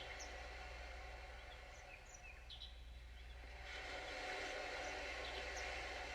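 Heartbeat-driven soundscape from a Sound of Soul device, played over a speaker: a steady wash like surf, with short bird chirps scattered through it. The wash eases off around the middle and swells again about two-thirds of the way in.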